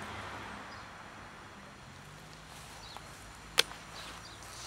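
A single sharp plastic click about three and a half seconds in, as a clip-lidded plastic food box is handled, over faint low rustling.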